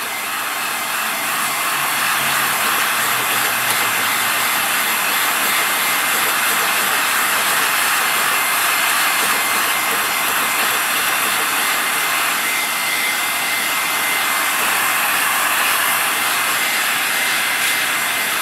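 Heat gun blowing steadily with a faint high whine, holding a freshly sprayed liquid powder coat at about 400 degrees in its gel state to cure it.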